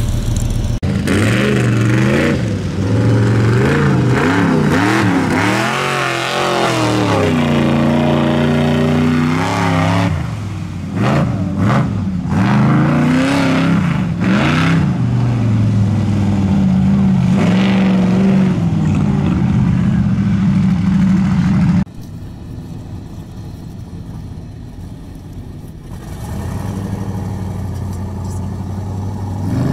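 Mud truck engines revving hard, their pitch rising and falling again and again. About 22 seconds in, the sound cuts abruptly to a quieter, steadier engine, which builds again near the end.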